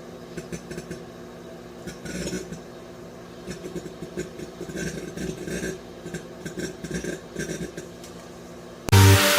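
Microwave oven running with its steady electrical hum, with irregular crackles and clicks from the plasma of a burning match inside it.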